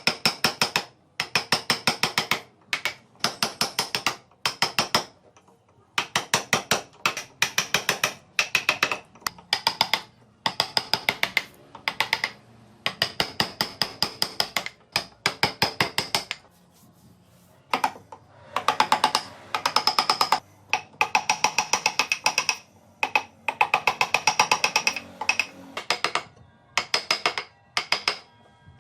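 Rapid mechanical clicking in bursts of about a second each, separated by short pauses, with a longer pause about two-thirds of the way through.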